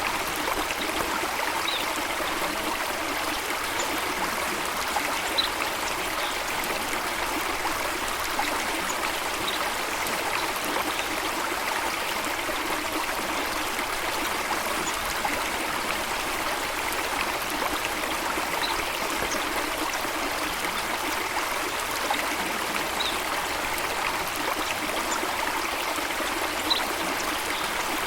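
Steady rushing and trickling of flowing water, even throughout, with a few faint, brief high ticks scattered through it.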